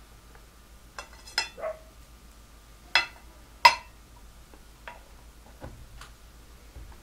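Metal tin and its lid clinking and knocking together as the lid is lifted off and set back on, closing up the tuna-can stove after its flame has been smothered. About eight short, ringing clinks, the loudest about three and a half seconds in.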